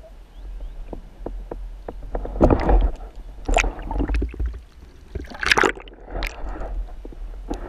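Water sloshing and gurgling around an underwater camera housing, with a steady low rumble. A run of light clicks comes about a second in, followed by several louder splashing rushes.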